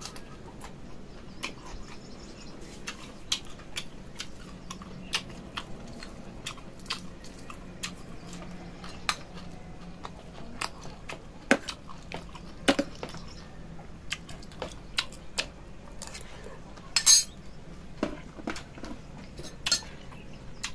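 Metal spoon clinking and scraping against a pan and a metal serving tray as food is scooped. There are scattered sharp clicks throughout, with the loudest clatter about three-quarters of the way through.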